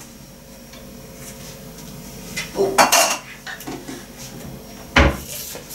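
Dishes and tea things clinking and knocking as they are put away: a short run of clatter about halfway through and a sharper knock near the end.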